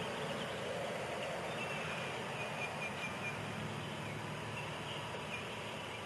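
Baby chicks peeping faintly now and then over a steady hiss, with a few longer, level peeps around the middle.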